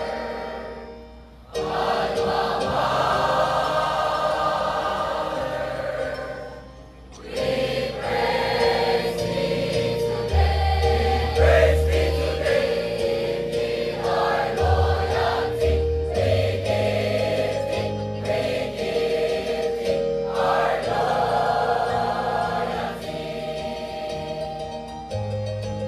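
Large mixed choir singing a school alma mater hymn with accompaniment, breaking off briefly twice between phrases.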